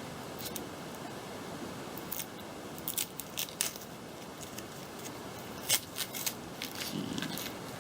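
Painter's tape being peeled off a spray-painted plastic part: scattered short crackles and ticks over a steady background hiss.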